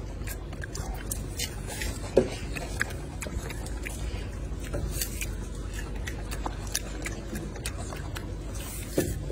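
Golden snub-nosed monkey chewing and biting a piece of food: small scattered clicks over a steady low background, with one brief louder sound about two seconds in.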